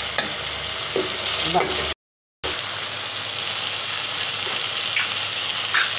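Onion, capsicum and grated tomato masala sizzling in a hot metal kadhai while a perforated slotted spoon stirs it, with a few scrapes against the pan. The sound cuts out completely for about half a second, around two seconds in.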